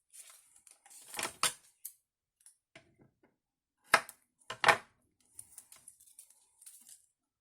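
Paper craft materials being handled on a tabletop: light rustling of card and paper with scattered sharp clicks, the two loudest about four and five seconds in.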